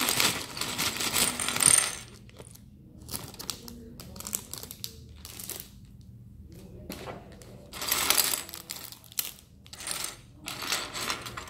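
Small plastic Lego pieces clattering and clinking on a table as they are poured out of a bag and sorted by hand. A dense rattle for the first two seconds, then scattered clicks, busier again near the end.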